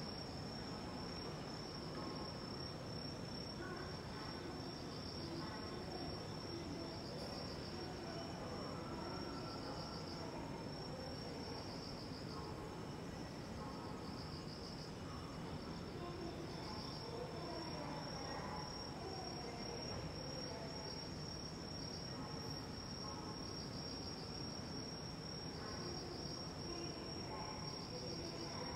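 Crickets chirping steadily: a continuous high trill with pulsed chirps repeating about every second, over a low, even background hum.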